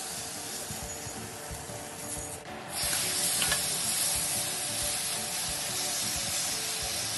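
Scraping in a non-stick frying pan as a silicone spatula pushes the cooked tomatoes and mushrooms out, then, from about three seconds in, pieces of oil-marinated chicken sizzling steadily in the hot pan as they are moved about with tongs.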